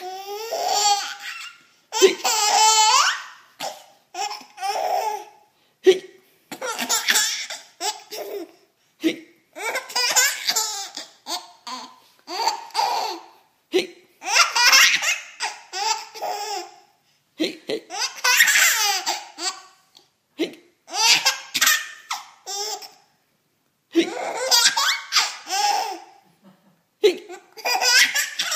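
A small child laughing hard, fit after fit, each bout a second or two long with short breaks between.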